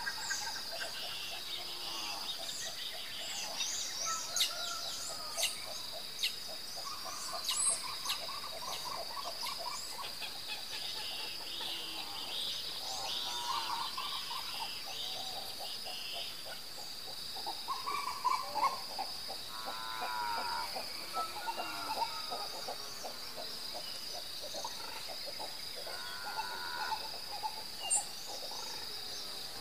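Night-time outdoor chorus: a steady high-pitched insect trill, with scattered short chirping calls from other animals and a few brief sharp clicks.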